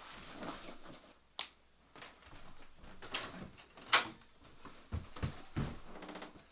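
A few scattered sharp clicks and knocks, with light rustling and a couple of dull low thuds near the end.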